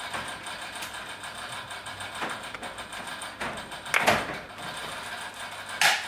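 Plastic handling sounds from an ear pad being fitted onto an Anker Soundcore Life Q35 headphone earcup: several brief rubs and clicks as the pad's backing is lined up and pressed onto the clips, the loudest about four seconds in.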